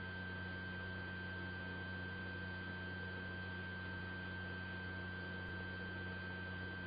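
Steady electrical hum with a constant high-pitched tone over faint hiss, unchanging throughout, with no other sounds.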